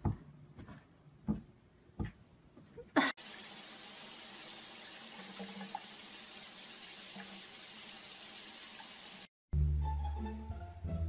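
A few sharp taps as a cat plays with a toy poking through a cardboard board, then tap water running steadily for about six seconds, starting and stopping abruptly. Near the end, plucked-string music starts.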